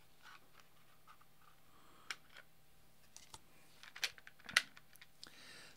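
Quiet handling of a clear acrylic oscilloscope case, with a few sharp clicks and taps as the acrylic panels and circuit board are pressed and handled, the loudest about four and a half seconds in.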